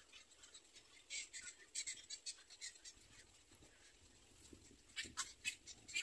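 Dry, scratchy clicks at a black-crowned night heron's stick nest, in two quick runs: one about a second in, the other near the end.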